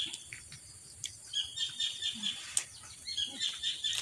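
Birds chirping in short repeated runs, with a few sharp clicks and soft mouth sounds from someone eating.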